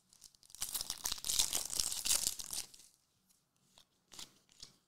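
Foil trading-card pack being torn open: about two seconds of crinkly tearing of the wrapper, followed by a few soft clicks as the cards inside are handled.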